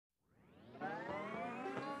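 Music fading in from silence: a held chord with many overtones that swells and rises a little in pitch over the first second, then holds steady.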